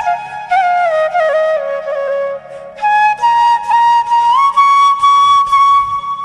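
Instrumental ringtone music: a flute-like wind instrument plays a melody that steps down, pauses briefly a little over two seconds in, then climbs and holds a high note near the end, over a faint repeating accompaniment.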